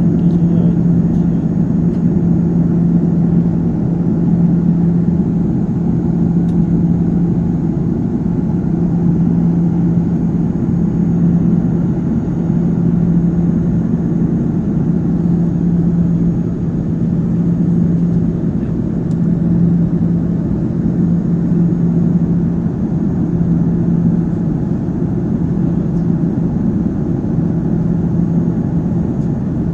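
Airliner cabin noise in flight: the steady drone of the engines and airflow, with a loud hum that swells and fades slightly every second or two.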